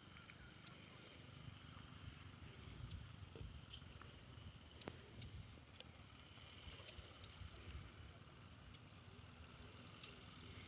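Near-silent outdoor ambience: a faint low rumble with scattered short, high chirps. There is a single sharp click about five seconds in.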